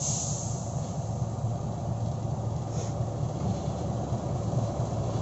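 Heavy diesel machinery running steadily with a low rumble. Short hisses come right at the start and again about three seconds in.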